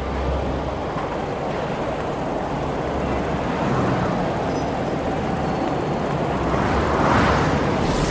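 Cartoon street traffic sound effects: a steady hum and rumble of passing vehicles, with one vehicle whooshing past close by about seven seconds in.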